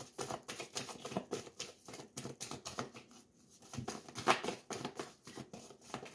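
A tarot deck being shuffled by hand: a quick, uneven run of soft card clicks and slaps, loudest a little past the middle.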